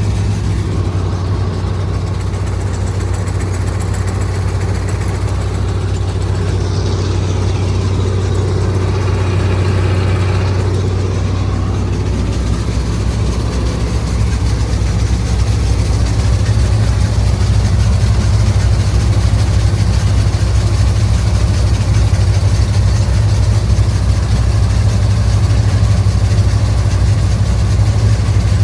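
Combine harvester's engine running steadily with a low, continuous drone, growing a little louder about halfway through.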